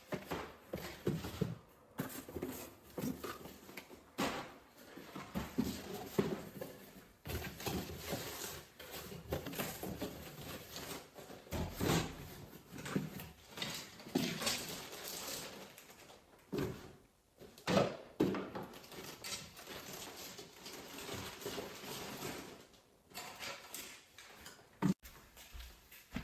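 Irregular knocks, clatter and rustling of household items being handled and put away, with a sharp click near the end.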